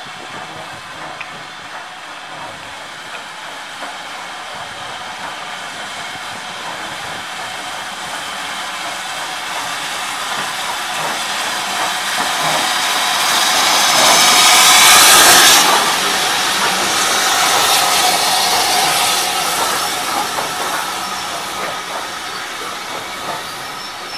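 Southern Railway U class 2-6-0 steam locomotive 31806 pulling a train of coaches into the station. It grows steadily louder as it approaches, passes beneath with a loud hiss of steam about fifteen seconds in, then the coaches rumble past and the sound fades.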